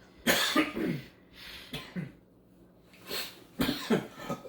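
A man coughing hard several times and clearing his throat, choking on a piece of sausage stuck in his throat.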